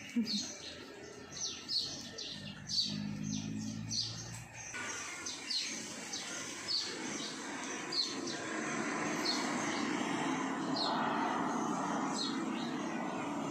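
A small bird chirping over and over, short falling chirps about once a second, over a steady background noise that grows louder in the second half. A low hum sounds briefly a few seconds in.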